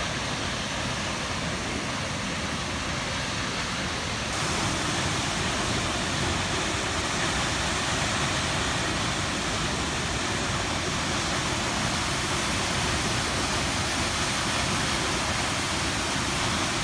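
Krimml Waterfalls' water crashing and rushing in a steady, dense roar, slightly louder from about four seconds in.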